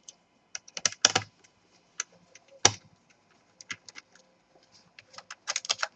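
Irregular small clicks and taps of a screwdriver and tiny screws against the plastic underside of a laptop as the hard-drive bracket screws are undone, with a quick run of rattling clicks near the end.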